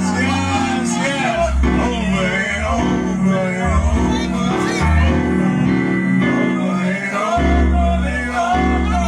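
Music: a voice singing a wavering melody over a band with a strong, changing bass line.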